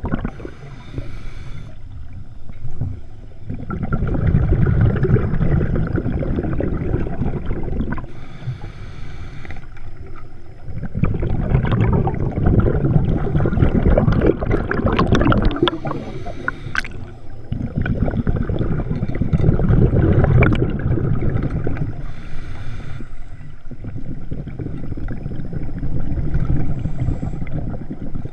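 A scuba diver breathing through a regulator underwater: about four long bubbling exhalations, each a few seconds, separated by short hissing inhalations.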